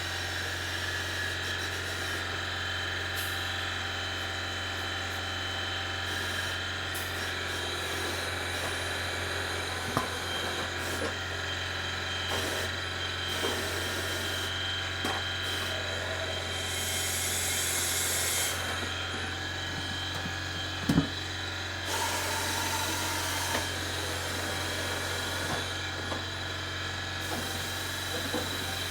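Tire changer machine running with a steady motor hum while its rollers work a tire off the wheel to break the bead. There are a few sharp knocks, and two bursts of hiss about 17 and 22 seconds in.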